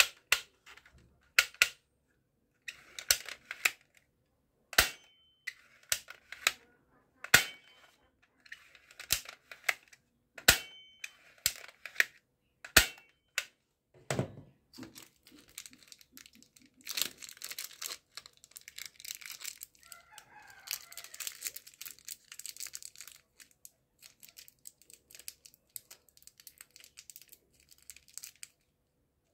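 Sharp plastic clicks, about one a second, as a black plastic toy pistol is worked in the hand, with a short scraping slide between some of them. From about 17 seconds in, a small clear plastic packet of yellow toy-gun pellets crinkles and rustles as it is picked open.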